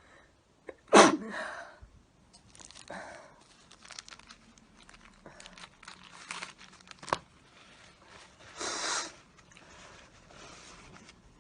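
A person sneezes once, loudly and suddenly, about a second in. Paper-tissue rustling and crinkling follow, then a short, hard blow of the nose a little past the middle.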